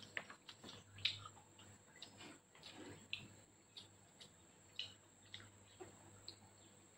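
Faint, scattered clicks and light taps of things being handled at a table, the loudest about a second in.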